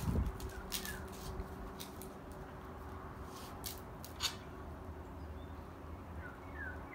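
Eating by hand: flatbread tearing and rustling, with a few sharp clicks and taps as the food and a fork are handled on the plates.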